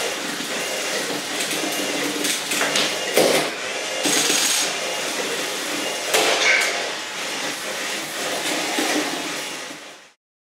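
Lego combat robots running: electric drive motors and a spinning weapon whirring, with plastic parts clattering and several sharp knocks as the robots strike each other and the wall. The sound fades out just after ten seconds.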